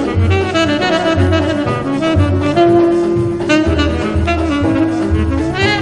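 Instrumental background music with a horn melody over a steady, repeating bass beat.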